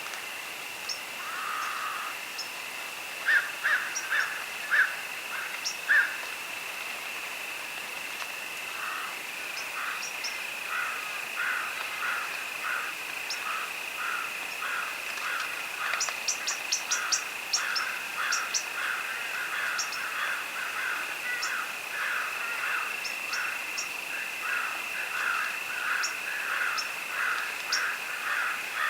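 Dusk field chorus: crickets keep up a steady high trill, over which a lower chorus of rapidly repeated chirping calls comes and goes and grows denser partway through. Scattered short high ticks sound throughout, and a few louder calls stand out a few seconds in.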